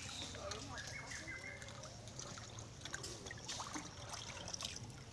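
Faint splashing and trickling of water as a macaque swims and paddles in a round concrete water tank.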